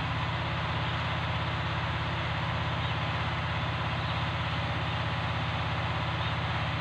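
An engine idling steadily: a low, even drone with a fast regular pulse and a faint hiss above it.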